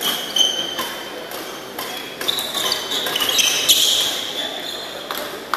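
Badminton rally: shoes squeaking on the court floor in several short high squeals, with sharp racket strikes on the shuttlecock. The squeaking is strongest past the middle.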